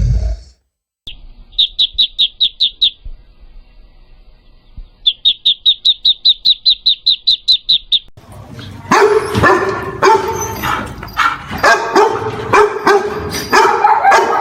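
Two runs of rapid, high chirps, about six a second, from a bird, then from about halfway through a dog barking over and over.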